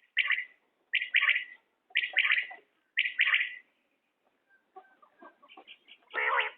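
Common quail calling: four short phrases about one a second, each of a few quick notes, then fainter scattered sounds and a louder call near the end.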